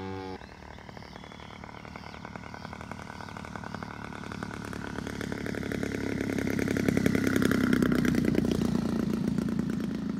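Engine of a radio-controlled aerobatic model airplane running as the plane passes low along the runway. It grows louder to a peak about seven to eight seconds in, then eases slightly as the plane moves away.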